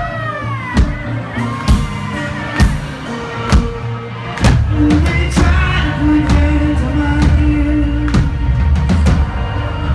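Live reggae-rock band playing an instrumental passage, with a drum hit about once a second; a heavier bass line and a sustained note come in about halfway through.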